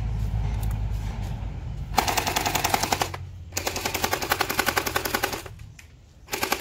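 Airsoft gun firing on full auto: two rapid bursts, the first about a second long and the second about two seconds, starting about two seconds in. A low rumble comes before the first burst.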